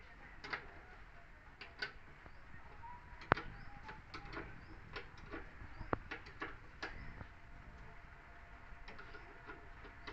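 Irregular metallic clicks and taps of a spanner working on the fittings of a JCB 3DX backhoe loader, with two sharper clicks about three and six seconds in.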